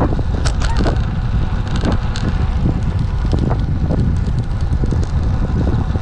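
Wind buffeting the microphone of a camera mounted on a moving road bike: a steady heavy rumble, with scattered clicks and rattles from riding over rough, cracked pavement.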